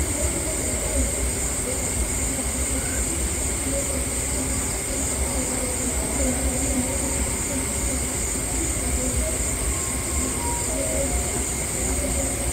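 Steady outdoor night ambience: a constant high-pitched insect drone over a low, even rumble.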